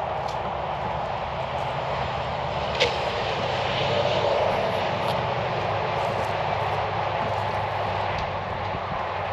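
Tractor engine running steadily, with a single sharp knock about three seconds in.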